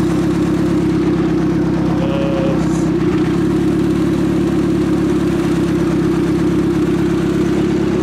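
Turbocharged 1995 Acura Integra's B18 four-cylinder idling steadily, running on all four cylinders now that its valve lash has been adjusted to cure a misfire.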